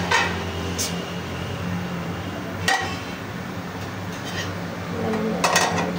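A few sharp metallic clinks and knocks from a large aluminium cooking pot being handled on the stove, each with a brief ring, and a quick cluster of them near the end, over a steady low hum.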